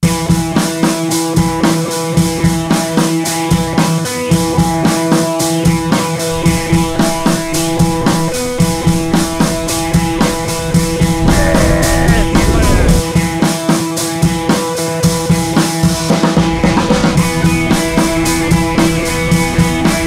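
Music with a steady drum-kit beat.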